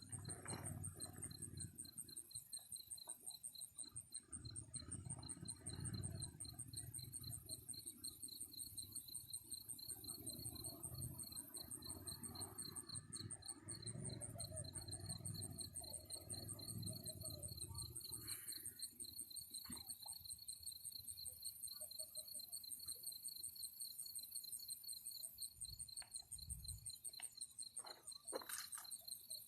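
Crickets chirping in a steady, rapid pulsing trill, with a low rumble for the first half or so and a few sharp clicks near the end.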